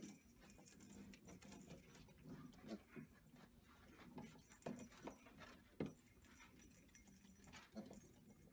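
Piglets grunting faintly now and then, with a few short clicks and knocks, the sharpest about halfway through.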